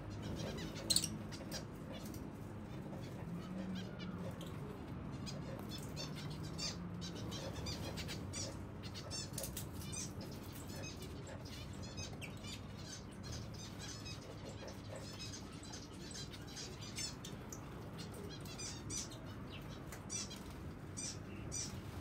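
Zebra finches chirping, many short high calls scattered throughout, with wings fluttering as birds take off from the floor. There is a sharp click about a second in.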